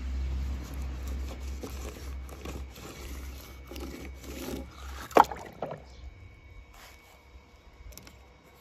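Diecast toy car rolled back and forth through wet paint on paper, its wheels scraping and squishing, over a low rumble that stops about two-thirds through. A sharp click a little past halfway.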